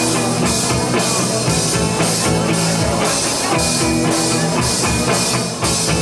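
Live rock band playing an instrumental passage with no vocals: drum kit keeping a steady beat with cymbal hits, over electric guitar and bass.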